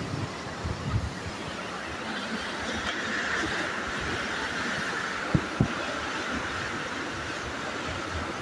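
Steady rush of a fast-flowing mountain river, growing stronger a couple of seconds in, with two short thumps about five seconds in.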